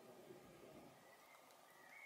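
Near silence: faint outdoor background with a faint low rumble in the first second that fades away, in a pause between bird calls.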